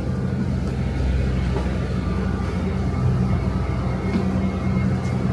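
Airport transfer bus running steadily: a low engine hum with steady low tones over a rumble.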